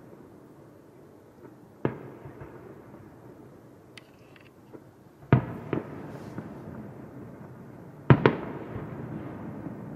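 Aerial firework shells bursting: one sharp bang about two seconds in, two more close together just past the halfway point, and the loudest double bang near the end, each trailing off in a long echo.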